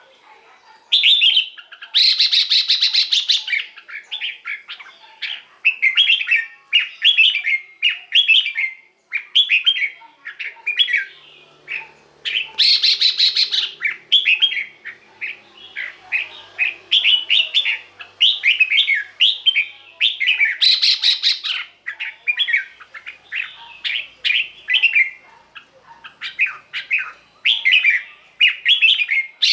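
Red-whiskered bulbul singing: rapid runs of short, bubbly whistled phrases, broken three or four times by louder, harsh rasping bursts.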